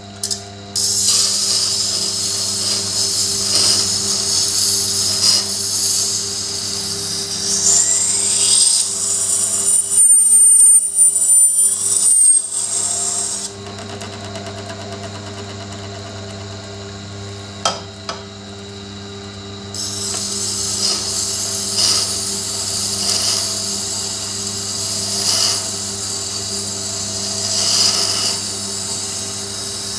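Tormek T7 wet sharpener's motor humming steadily while a Buck folding knife's edge is ground on the water-cooled stone, dressed to 1000 grit, making a hissing scrape. The scraping stops for several seconds a little before halfway, leaving only the motor hum, then starts again.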